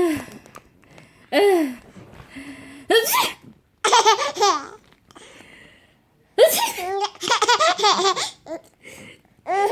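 Baby laughing in several separate bursts, with a long run of quick laughs about two-thirds of the way through.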